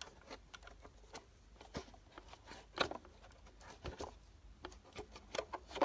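Irregular light clicks, taps and rubbing of a plastic Roomba dust bin being handled while its inside sensors are wiped clean.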